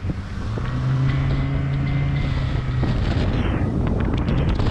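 Outboard motor of a boat running at speed, a steady engine hum that is clear from about half a second in and fades under the noise about three seconds in. Heavy wind buffeting on the microphone runs throughout.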